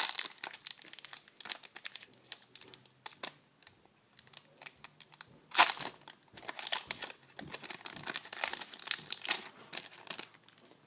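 Foil booster-pack wrapper crinkling and tearing as it is pulled open by hand, in a run of irregular crackles with one sharper, louder rip a little past halfway.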